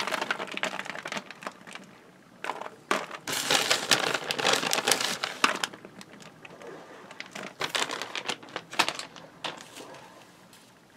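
Crinkling and rustling of a disposable aluminium foil pan under a gloved hand as shredded cheese is scattered over the sausages, with irregular light ticks and taps. It is densest a few seconds in.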